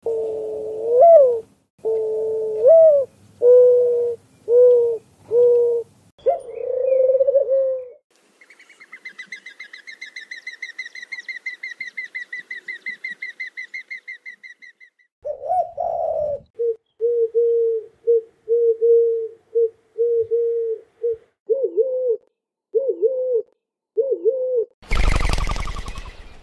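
Doves cooing: a run of low hoots, several with a rising end, and later a quicker series of short coos. Between them comes a rapid high-pitched trill of about five notes a second lasting several seconds, and a loud burst of noise comes near the end.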